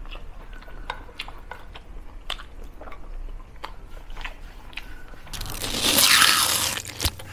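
Close-up chewing and crunching of food in the mouth, with small clicks of fingers working rice in a bowl. About five seconds in, a loud swoosh rises and fades over about two seconds.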